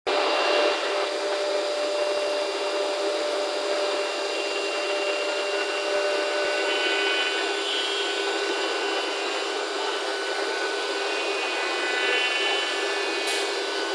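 Chencan CC-M1325A-3 CNC wood router running: the spindle whines steadily over a constant rushing noise as the bit routes a wooden panel. One of the whine's tones drops out about halfway through.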